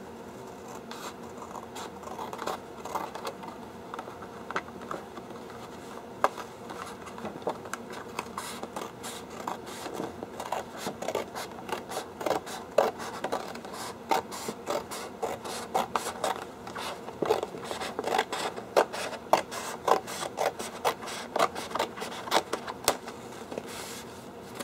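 Scissors cutting a long strip off a sheet of posterboard: a steady run of crisp snips with the blades rasping through the card, coming more regularly and more loudly in the second half.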